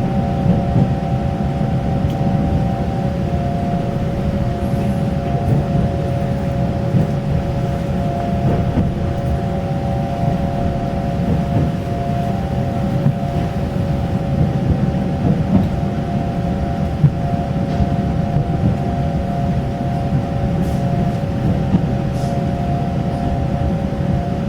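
Taiwan Railway electric local train running at steady speed, heard from on board: a continuous low rumble of wheels on track with a steady hum of several tones over it.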